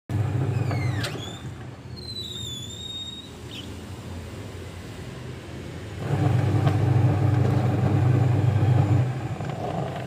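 Sharp top-loading washing machine's motor humming in two spells, a short one at the start and a longer one from about six seconds in, stopping abruptly about three seconds later.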